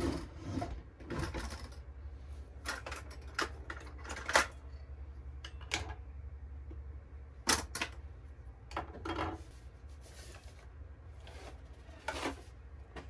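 Kitchen prep handling: irregular clicks, knocks and rustles as a drawer is opened and a cardboard box of pancake and waffle mix is handled, ending with dry mix being poured from the box into a bowl. The sharpest knocks come about four and seven and a half seconds in, over a low steady hum.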